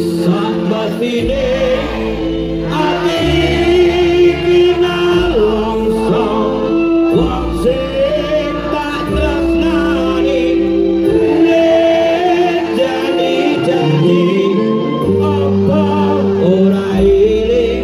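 Javanese campursari band playing live: a man singing lead over electric guitar, keyboards and bass, with the audience singing along, heard from within the crowd.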